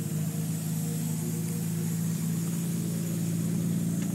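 Nissan Skyline R34 GT-R's RB26DETT twin-turbo straight-six idling steadily, very quiet and smooth.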